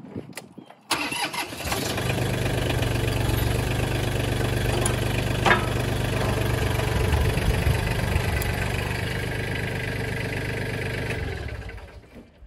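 Mahindra 1626 HST compact tractor's diesel engine starting about a second in and running steadily, with a single knock about five and a half seconds in, then dying away near the end.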